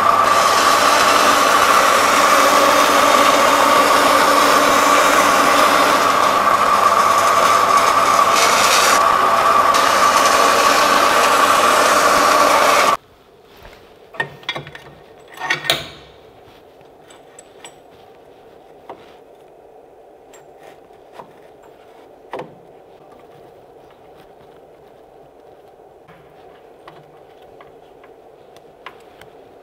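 Bandsaw cutting through an aluminium sheet: a loud, steady rasping hiss with a ringing tone, which cuts off abruptly about 13 seconds in. After that come scattered clicks and knocks as the aluminium sheet is set into a desktop CNC mill's bed and clamped down, over a faint steady hum.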